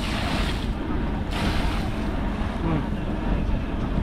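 Fishing boat's engine running steadily with wind on the microphone, and two short bursts of rushing hiss in the first two seconds.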